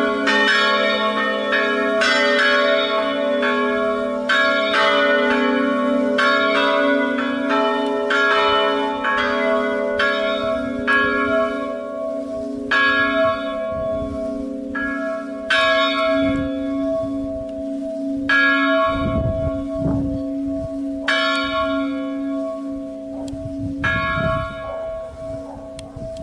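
Three church bells tuned A, B and C sharp ringing a festive peal. The strikes come thick and overlapping at first, then thin out from about ten seconds in to single strikes every second or two, over a hum of lingering bell tones, and the ringing grows quieter toward the end.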